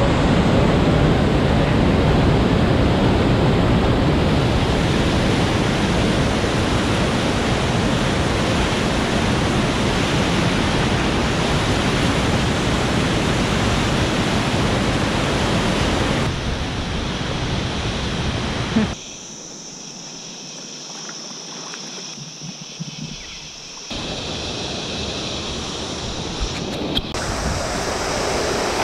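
Whitewater rapids rushing over rocks: a loud, steady rush of churning water. It falls to a softer, thinner rush for about five seconds past the middle, then comes back up.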